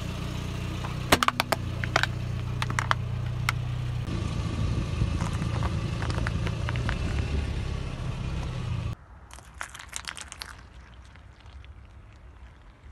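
Car tyre rolling over and crushing things: a cluster of sharp plastic cracks and snaps in the first few seconds, over the low, steady hum of the car. Lighter crackling and crunching follow, and near the end a quieter patch of crackles with no engine hum.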